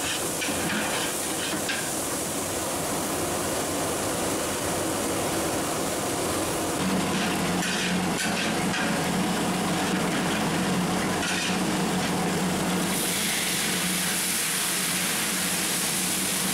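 Garlic cloves sizzling in hot oil in a large aluminium pot, stirred with a long metal spatula that scrapes the pot bottom now and then. A steady low hum comes in about halfway through, and the sizzle gets louder near the end.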